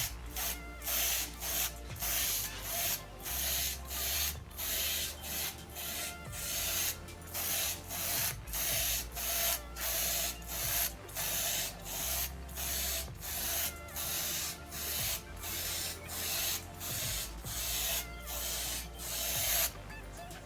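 Aerosol spray can of Rust-Oleum 2-in-1 paint and primer being sprayed onto an amplifier's aluminium heatsink in short passes: a quick hiss about one and a half times a second, each pass lasting around half a second.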